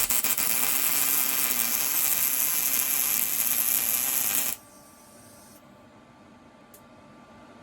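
MIG welding arc from a PrimeWeld MIG180 running .030 wire at about 18.6 volts: a steady crackling hiss that cuts off abruptly about four and a half seconds in, when the trigger is released. Then a low background with one faint click near the end.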